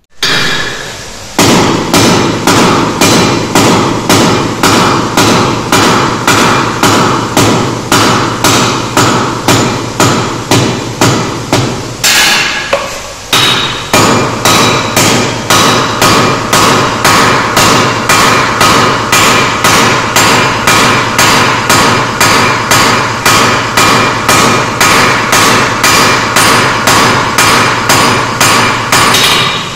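Hand hammer striking red-hot steel on an anvil at about two blows a second, each blow ringing, with a short pause about 13 seconds in. A blacksmith is forging a nail.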